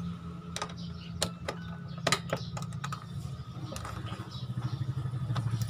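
Small metallic clicks and clinks of a socket wrench as a bolt is turned into a motorcycle's body panel, irregular at first and coming quicker near the end, over a steady low hum.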